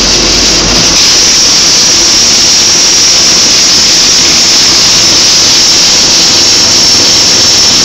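CRC-Evans automatic pipeline welding heads running their arcs around the pipe joint, a loud, steady hiss and crackle.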